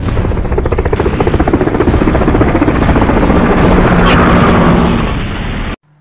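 Helicopter sound effect: the rotor blades chop rapidly, with a sharp crack about four seconds in. It cuts off suddenly near the end.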